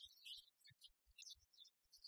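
Near silence: a very faint, broken-up high hiss with a few soft low clicks scattered through it.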